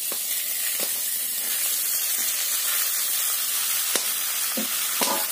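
Raw pork pieces sizzling in a dry, preheated iron kadai with no oil: a steady loud hiss, with a few soft knocks as more pieces drop into the pan.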